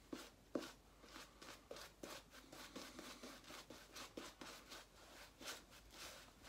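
Shaving brush working lather over a bearded face: faint, quick swishing strokes, about three or four a second.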